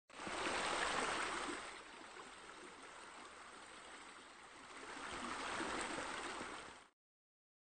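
Running water from a fountain, a steady splashing rush that swells louder about a second in and again near the end, then cuts off abruptly.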